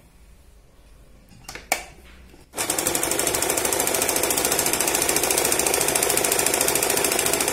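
Usha Stitch Queen electric sewing machine running steadily at speed, sewing a dense zigzag (satin) stitch at a short stitch length, with a fast, even rhythm of needle strokes. It starts about two and a half seconds in, after a couple of light clicks.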